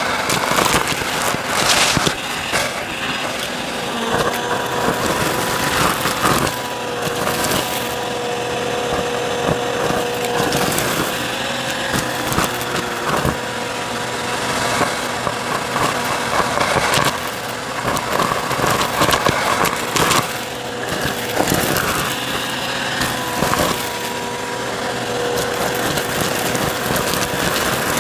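Bissell CleanView upright vacuum running with a steady motor whine, crackling and crunching as it sucks up dry debris.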